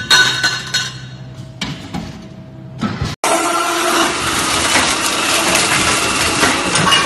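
LX-ZY-330 CNC circular-saw pipe-cutting machine at work. About three seconds in, a loud, dense, steady metallic noise with ringing tones starts abruptly: the saw blade cutting through a bundle of nine thin-walled stainless steel tubes at once. Before it the machine is quieter, with a few steady tones.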